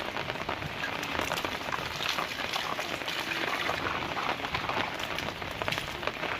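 Steady rain falling and spattering on surfaces, a dense even patter of drops.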